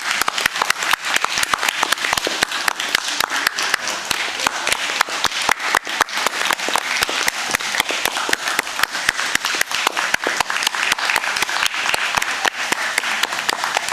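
Audience applauding: dense, steady clapping from many hands that stops right at the end.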